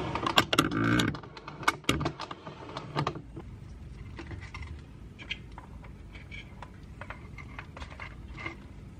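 Hands handling an RC crawler's battery leads and connector while the battery is plugged in: a quick run of clicks and rattles in the first three seconds, then a few light scattered clicks.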